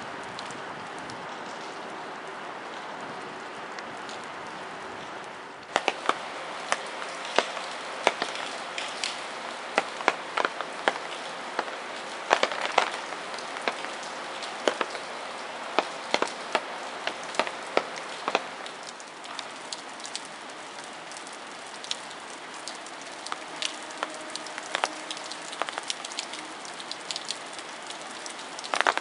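Light rain falling: a steady hiss of rain, and from about six seconds in many irregular sharp taps of raindrops striking close by.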